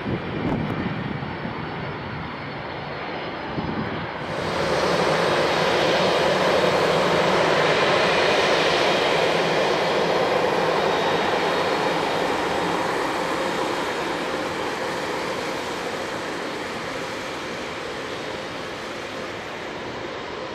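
Boeing 767-300ER jet engines during the landing rollout, a loud steady rush that swells abruptly about four seconds in and then slowly fades.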